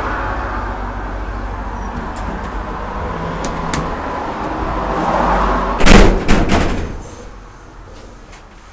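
Schindler hydraulic elevator running with a steady noise, then its sliding doors banging against their stop with a loud clunk and a short rattle about six seconds in, quieter afterwards.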